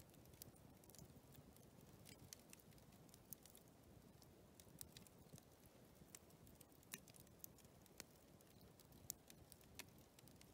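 Near silence: a faint low background haze with scattered small, sharp clicks at irregular intervals, a few each second.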